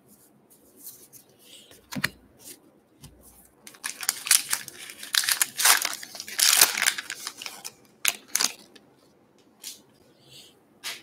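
A foil trading-card pack wrapper being torn open by hand, crinkling and tearing, densest about four to seven seconds in. There are scattered clicks and taps from the cards being handled before and after.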